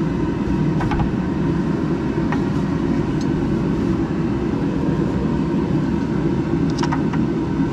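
Steady low rushing noise of a garage heater running, with a few light clicks of water pump pliers on the oil filter canister's tabs.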